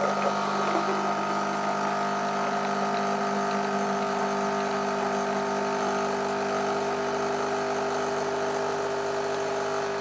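Nescafé Dolce Gusto Jovia capsule coffee machine's pump running steadily with an even buzz as it forces hot water through a cappuccino milk pod, dispensing frothy milk into a glass.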